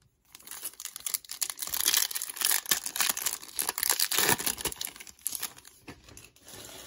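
Foil wrapper of a 2021 Topps Pro Debut baseball card pack being torn open and crinkled by hand, loudest in the middle and fading to quieter rustling near the end.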